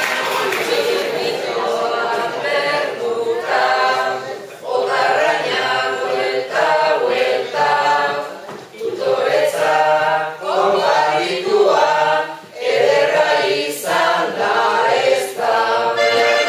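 A group of people singing together unaccompanied, a song in Basque, in short phrases of about two seconds with brief breaks between them.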